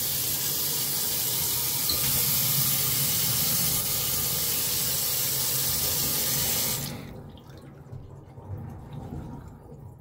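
Commercial sink faucet running a steady stream into a stainless steel basin, the water cloudy with air being purged from the lines after the water heater refill. The faucet is shut off about seven seconds in, and the sound drops away sharply.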